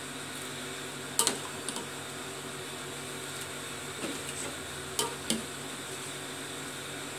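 Cooking sounds while chicken soup is reheated: a few sharp clinks of a utensil against cookware, the loudest about a second in and two more around five seconds in, over a steady hum of a kitchen appliance.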